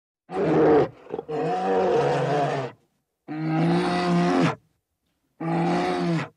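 Brown bear calling: four long, pitched calls with short silences between them, the second the longest.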